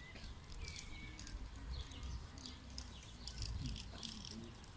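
Mallard ducklings peeping: many short, high chirps scattered throughout.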